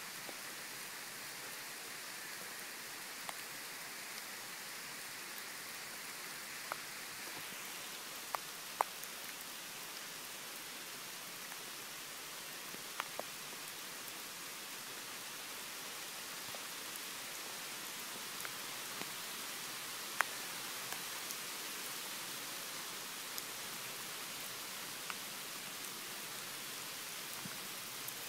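Steady rain falling on pavement and grass, an even hiss with single drops ticking sharply now and then.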